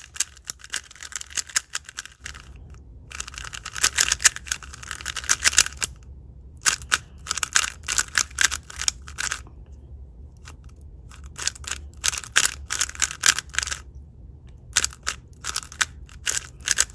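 Angstrom Studio WeiLong WR M 3x3 speed cube, factory-lubed with Angstrom Project A and B, being turned fast by hand. Its plastic layers clack in about five quick runs of turns with short pauses between them, and the sound is dry and papery.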